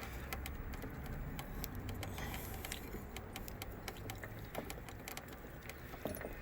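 Irregular light clicks and ticks of small metal fittings being handled and threaded onto a refrigerant line's new access port, over a low steady hum.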